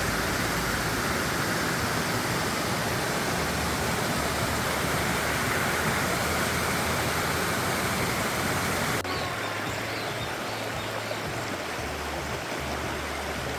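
Gorge stream rushing over rocks: a steady, dense rush of water. It drops a little in level about nine seconds in.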